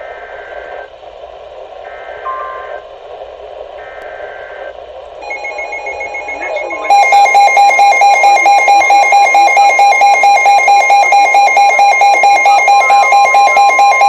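NOAA weather radio receiver sounding a Severe Thunderstorm Warning alert. Brief on-off bursts of EAS data tones come through first. About seven seconds in, the radio's own loud, rapidly pulsing alarm beep starts, and the broadcast's steady 1050 Hz warning tone joins it near the end.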